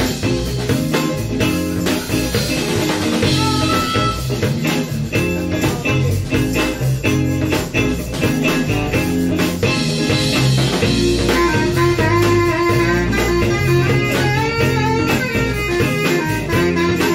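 Live band playing an instrumental stretch with electric guitar, bass guitar and a drum kit keeping a steady beat.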